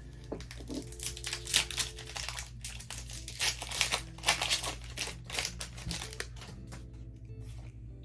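Foil booster-pack wrappers crinkling and crackling in quick irregular bursts as the packs are handled.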